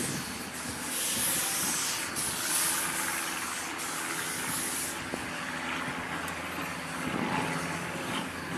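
Steam locomotive (a 1907 Baldwin 2-6-0) approaching in the distance, with long bursts of hissing steam over the first five seconds, about a second each, then quieter running.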